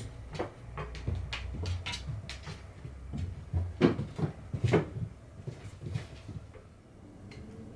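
A cat batting and pouncing on a small ball on a hard floor: irregular light taps and knocks from its paws and the ball, with a few louder thumps about four and five seconds in.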